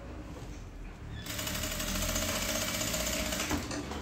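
Jack industrial lockstitch sewing machine stitching a short seam: it starts about a second in, runs at a steady speed with a fast even rattle for a little over two seconds, then stops.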